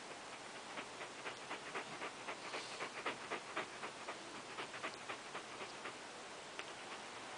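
Dog panting quickly, about three to four breaths a second, loudest in the middle of the stretch.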